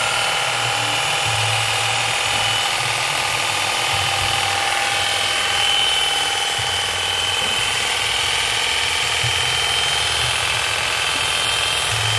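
Makita electric hedge trimmer with a 35 cm blade running unloaded, its motor and reciprocating blades giving a steady, smooth whine.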